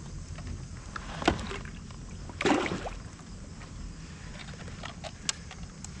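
A bass released over the side of a kayak splashes into the river about two and a half seconds in, the loudest sound here. About a second earlier there is a sharp knock, and light clicks and knocks of gear against the kayak come later.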